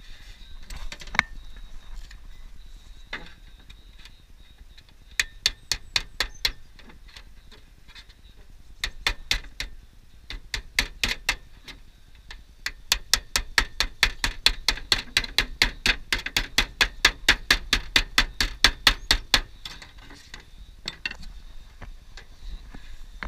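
Runs of quick, sharp metallic taps on aluminium roofing sheet: a few short runs, then a steady run of about three or four taps a second lasting some seven seconds, as a tool is worked against the sheet to set it.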